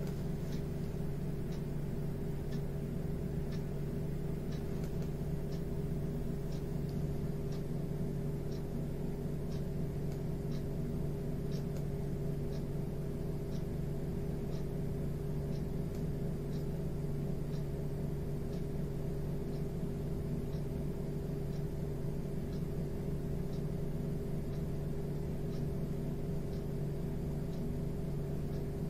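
Steady mechanical hum made of several held low tones, with faint high ticks repeating about every half second that die away in the second half.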